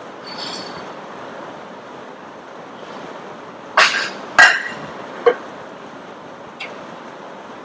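Sharp metallic clanks of gym equipment: two close together a little past the middle, the second the loudest and ringing briefly, a third about a second later and a faint tap near the end, over steady gym background noise.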